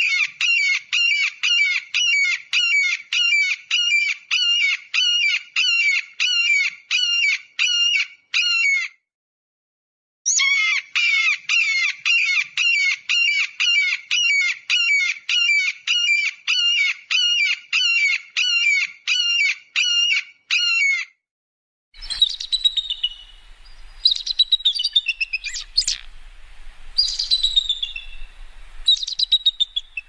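Eagle calling: a long, even series of high, piping chattering notes, about two or three a second, broken by a pause about nine seconds in and stopping at about 21 seconds. From about 22 seconds comes a different recording with a faint hiss and low hum, holding scattered high calls that fall in pitch.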